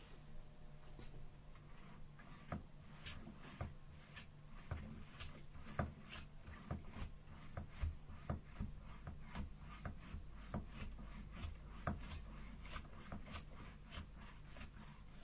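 Faint handling sounds: irregular small clicks, taps and rubbing, a few of them sharper, as the parts of a Staresso portable manual espresso maker are handled.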